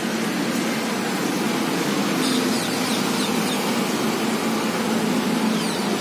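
Steady road-traffic noise with a low hum. A few faint, short, high falling chirps from birds are heard in the middle and again near the end.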